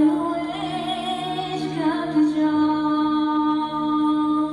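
A cappella vocal ensemble singing a sustained chord of held notes, with one voice wavering and ornamenting above it about half a second to two seconds in.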